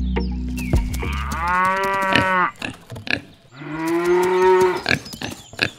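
A cow mooing twice, each moo a long, slightly falling call of about a second and a half, the second following about a second after the first. Background music fades out under the first moo.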